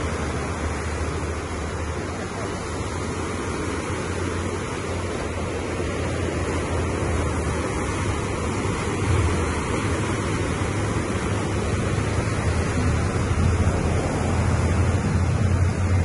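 Wind buffeting the microphone over the steady wash of sea waves, a continuous rushing noise that grows somewhat louder near the end.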